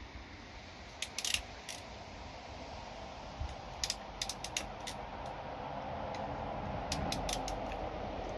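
Short, sharp clicks from a hand crimping tool and wire connectors as bilge pump wiring is joined. They come in small clusters about a second in, around four to five seconds, and near seven seconds, over a faint steady background noise.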